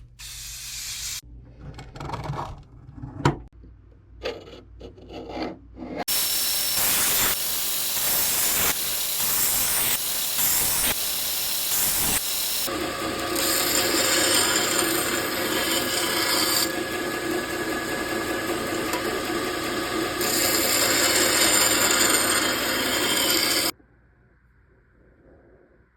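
Knife blade being ground on a grinder to shape its bevel: a loud, steady rasping hiss from about six seconds in, with a steady whine added partway through, cutting off suddenly near the end. Before it starts there are a few short scrapes and knocks.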